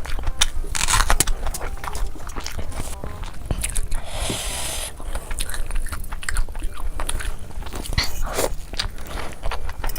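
Close-miked eating sounds: a person biting and chewing food with many small wet clicks and crunches, and a longer crackly burst about four seconds in.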